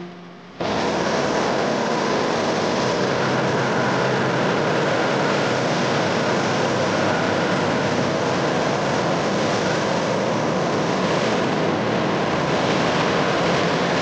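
A rotary tool whines for a moment, then a hand-held gas torch's flame rushes steadily, its blue flame jetting into a tin can.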